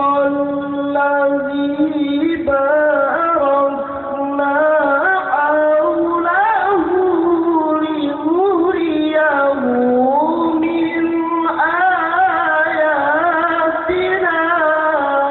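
A male qari reciting the Quran in melodic tilawah style: a long sung phrase of held, high-pitched notes with wavering ornaments and glides.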